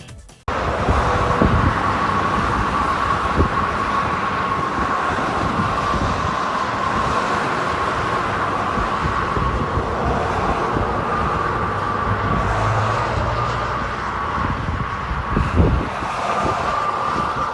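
Hurricane-force wind blowing hard, a continuous loud rush with low buffeting thuds on the microphone and a thin steady whistle running through it.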